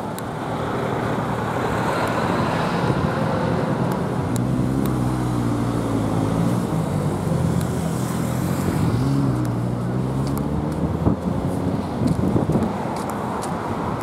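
Road traffic passing on a seaside road. Through the middle, one vehicle's engine hum stands out, dipping and then rising in pitch.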